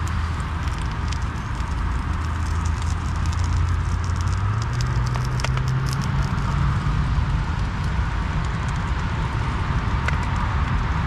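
Road traffic drone with a vehicle engine note that rises in pitch about four and a half seconds in, over light crackling and ticking from food frying in a pan on a camping stove.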